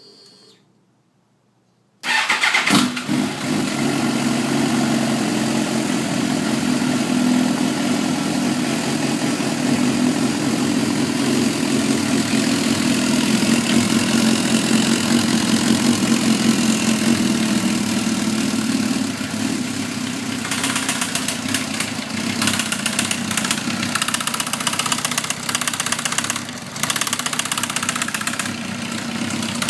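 Suzuki GSX-R1000 inline-four motorcycle engine starting about two seconds in, then idling steadily with a ticking from the cylinder head that comes and goes. The owner suspects a valve train problem, since compression and a leakdown test check out.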